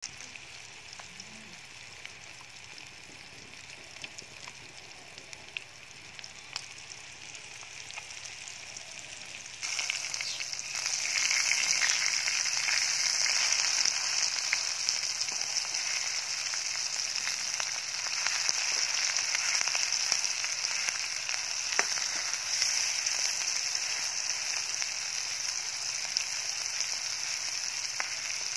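Sparrow meat in spice paste sizzling in hot oil in a wok, a steady frying hiss with small scattered pops. It gets much louder about ten seconds in.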